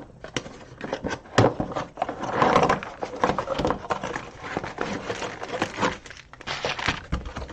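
A craft kit's box being opened and its packaging handled: irregular rustling and crinkling with sharp knocks and clicks, the loudest knock about a second and a half in.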